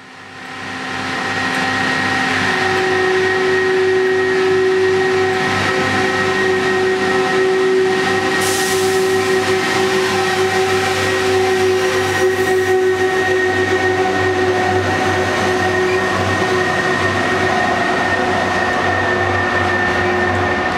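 Rail grinder DR80210 pulling out and passing close by at low speed, its engines running loud and steady with a constant whine over the noise of the moving train. A short hiss comes about eight seconds in.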